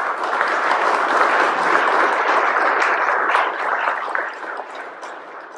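Audience applauding: a burst of clapping that starts at once, holds steady, then dies away over the last second or two.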